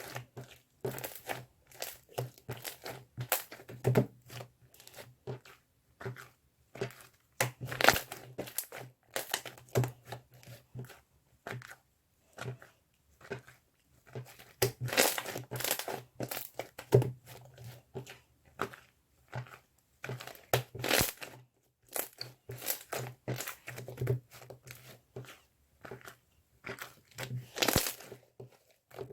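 Crinkling and crumpling of a handled material, in quick irregular crackles and short bursts, some louder than others.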